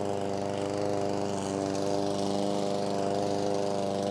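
PowerSmart 144cc OHV single-cylinder push lawn mower engine running steadily at an even speed. It has just been started for the first time, on the first pull.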